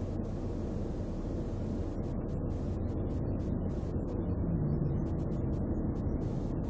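Steady low rumble of highway traffic with a faint hiss, as picked up by a car's dashboard camera on the roadside. A slightly louder hum comes in about four and a half seconds in.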